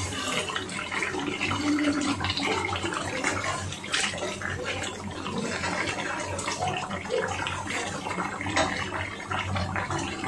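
Beef curry frying in its oil in a nonstick pan as it is stirred with a silicone spatula: a steady sizzle with scattered crackles, the gravy having cooked right down so the meat is frying in the oil.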